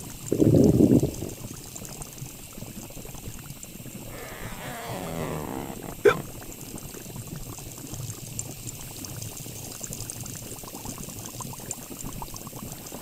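Carbonated soda fizzing and crackling steadily. There is a loud low rush about half a second in, a wavering pitched groan around four to five seconds in, and one sharp click just after six seconds.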